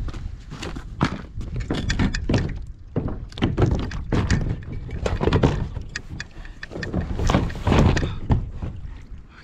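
Repeated knocks and thuds on a plastic sit-on-top kayak hull as a person steps off a wooden dock into it and sits down, with wind rumbling on the microphone.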